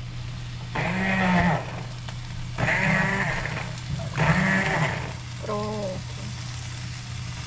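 Handheld immersion blender pulsed in a pot of soup: its motor whines in three short bursts, the pitch wavering as it churns, then a shorter, lower burst about five and a half seconds in.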